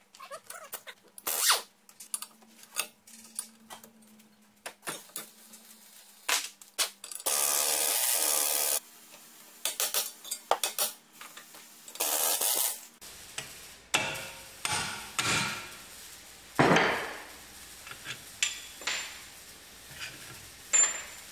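Wrenches and metal parts clicking, clinking and scraping while the tie-rod end, ball joint and strut bolts come off a front steering knuckle. A steady power-tool burst of about a second and a half runs about a third of the way in, and a shorter one follows a few seconds later.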